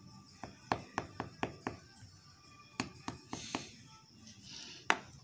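Knife cutting through a baked sponge cake, its blade clicking against the surface underneath in two quick runs of sharp ticks, with one louder click near the end. Soft background music plays underneath.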